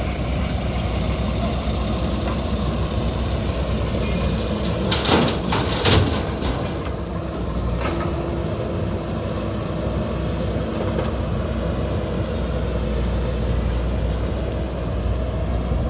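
Diesel engine of a JCB backhoe loader running steadily under a low rumble, with two loud crashes about five and six seconds in.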